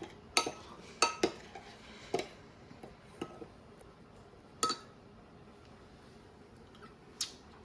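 A spoon clinking against a bowl while a dipping sauce is mixed: about seven sharp, unevenly spaced clinks, some with a short ringing tail.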